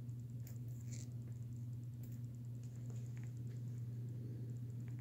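A steady low hum, with a few faint, light clicks and taps scattered through it.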